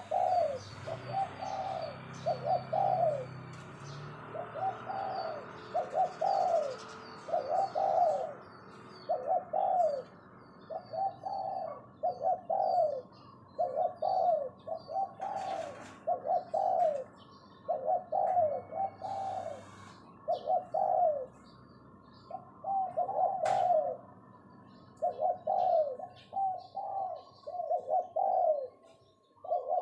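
Spotted dove (decoy bird) giving its short repeated 'phoh' coo, a rapid string of brief arched notes about one a second, broken by a few short pauses. Other small birds chirp faintly in the background.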